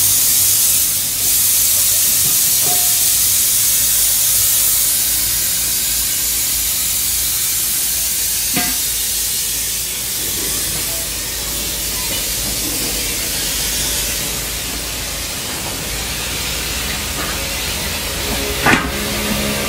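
Steady loud hiss of air, easing slowly, with a sharp knock about halfway through and a louder one near the end.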